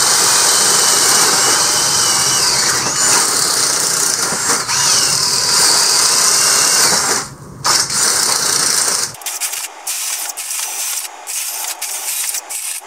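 Two 20-volt brushless cordless drills, a DeWalt Atomic and a Hart, boring 7/8-inch holes in 2x4 lumber with spade bits, their motors whining and wavering in pitch under load. The noise drops briefly about seven seconds in, then thins out and turns crackly about nine seconds in.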